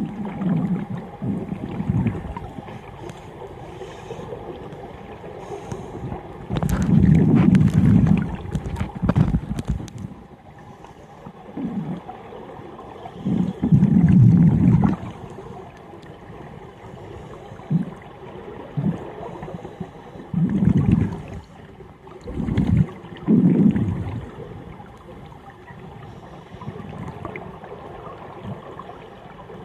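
Scuba divers' exhaled bubbles from their regulators heard underwater: low bubbling rumbles in bursts every few seconds, the longest and loudest about a quarter and halfway through, over a faint steady hum.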